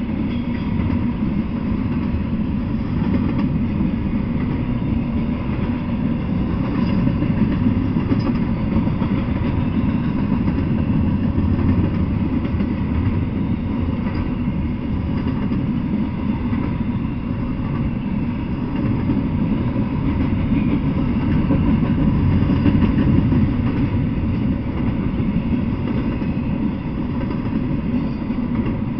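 Intermodal freight train of container well cars rolling past on the rails: a steady, unbroken rumble of wheels and cars.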